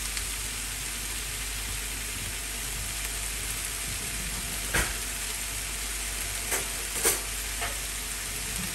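Chicken pieces sizzling steadily as they fry in a square pan, with a few sharp pops of spitting fat in the second half.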